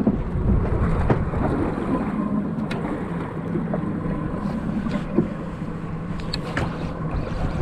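Boat engine humming steadily at low speed, with wind buffeting the microphone and a few faint clicks.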